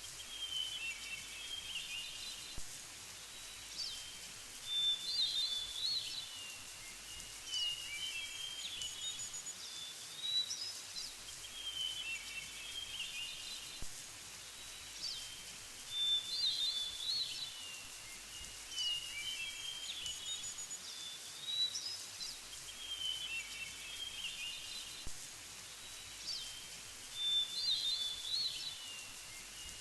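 Birds singing: a short chirping phrase comes back every five or six seconds over a faint steady hiss.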